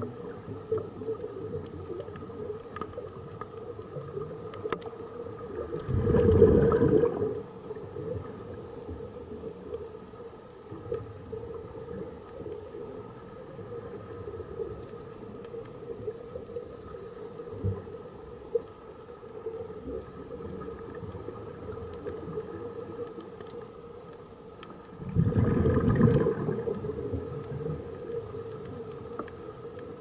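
Underwater recording of scuba regulator exhaust bubbles, gurgling out twice, about six seconds in and again about 25 seconds in, each for under two seconds. Between them there is a steady low hum with a few faint clicks.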